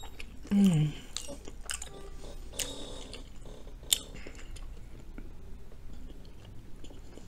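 A person chewing a mouthful of smothered cabbage and rice with chewy pieces of skin, wet mouth clicks throughout. A short hum falling in pitch comes in the first second, and a single sharp click, a fork against the glass bowl, about four seconds in.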